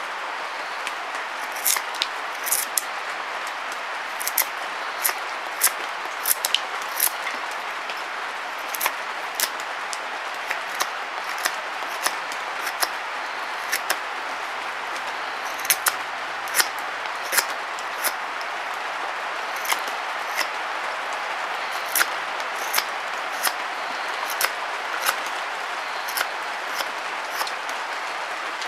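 Knife carving a feather stick from a sycamore stick: irregular sharp clicks of the strokes, about one or two a second, over a steady hiss.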